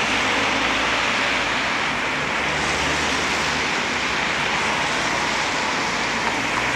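Steady traffic on a rain-wet city street: the hiss of tyres on wet asphalt, with a low engine hum from passing vehicles.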